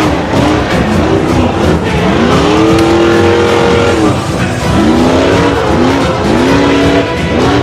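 Vehicle engine revving up and down several times, each rev rising in pitch, holding, then dropping. The longest rev is held for about two seconds near the middle, over a rough, gritty noise.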